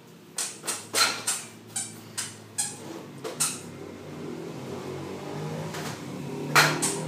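A quick run of about a dozen sharp knocks or bangs over three seconds, then a low steady hum building up, with one loud bang near the end.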